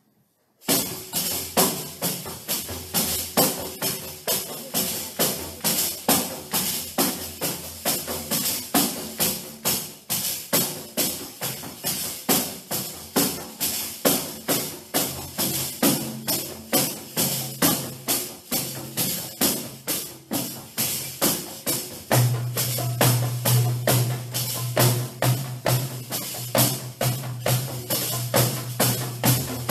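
Several hand-played frame drums and jingled tambourines beating a steady, even rhythm together, starting about half a second in. A low sustained note joins about 22 seconds in and holds under the drumming.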